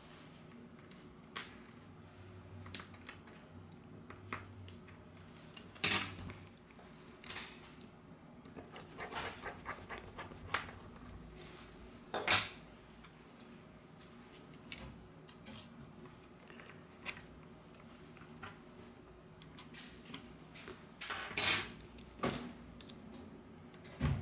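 Scattered small clicks, taps and scrapes of phone parts and tools being handled against the Xiaomi Mi 9T Pro's metal frame as the pop-up camera module and mainboard are fitted. Louder clacks come about six, twelve and twenty-one seconds in.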